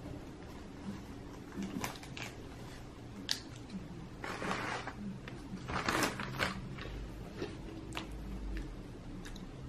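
Someone eating a small bite-size snack: soft chewing and mouth sounds, with scattered small clicks and two short rustling bursts about four and six seconds in.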